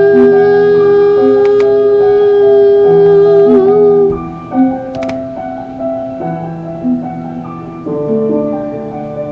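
Instrumental outro of a pop ballad: piano chords under a long held note that ends about four seconds in. After that the piano goes on more quietly with a few struck notes, fading out.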